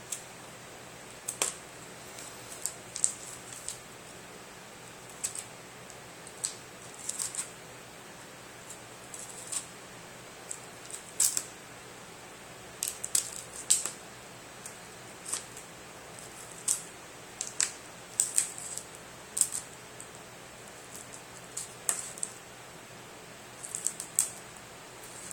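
Box cutter blade slicing through packing tape and cardboard along the edge of a shipping box: short, sharp scratchy cuts at irregular intervals, often several in quick succession.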